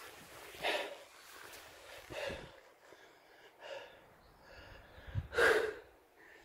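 A hiker breathing hard while climbing up a steep granite rock face: about four heavy breaths, roughly one every one and a half seconds, the last the loudest.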